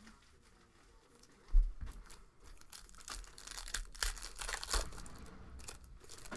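Foil wrapper of a 2021 Clearly Donruss Football card pack being torn open and crinkled by hand, a dense run of crackles from about three to six seconds in. A single low thump comes about a second and a half in.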